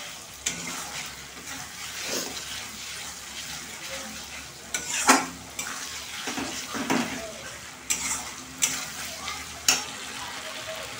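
Metal spatula scraping and knocking against a kadai (wok) as a thick spice paste with potatoes is stirred, over a low sizzle of the paste frying in oil. The strokes are irregular, the loudest about five seconds in.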